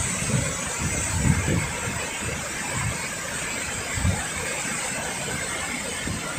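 Rain-swollen river rushing over rocks and falls: a steady roar of white water, with irregular low rumbles.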